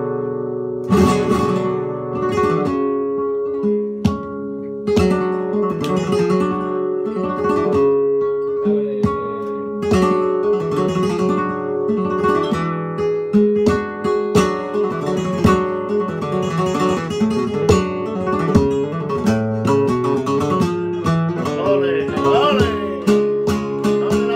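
Solo flamenco guitar playing in the seguiriya toque: strummed chords mixed with ringing single-note passages.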